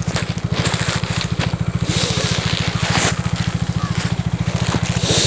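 Plastic Amazon mailer bag being crinkled and handled, loudest about two to three seconds in, over a steady low pulsing hum.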